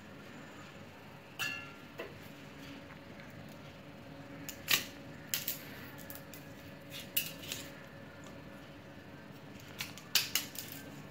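A kitchen knife cuts a drumstick (moringa pod) into pieces over a stainless steel plate: about a dozen sharp clicks and clinks at irregular spacing, one of them with a short metallic ring.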